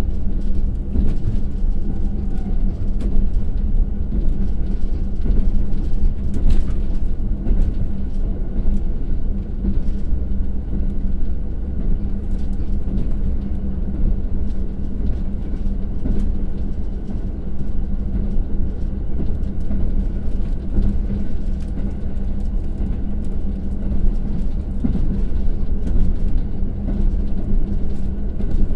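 Interior running noise of a KiHa 182-500 series diesel railcar at about 75–85 km/h, heard from a passenger seat: a steady low rumble of wheels on rail with a constant hum, and a few light clicks. The train is coasting downhill, so its DML30HSJ twelve-cylinder diesel engine is not pulling.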